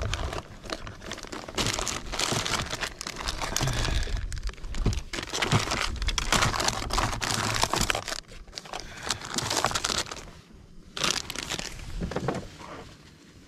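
Plastic bags and lure packets crinkling and rustling as a hand rummages through a plastic tackle box. The rustling comes in spells of a second or two, with short pauses between them.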